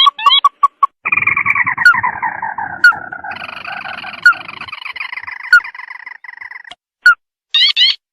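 Recorded bird calls played as a trapping lure: short, sharp rising notes, then a long chattering series of pitched notes that slides down in pitch, with more single sharp notes near the end.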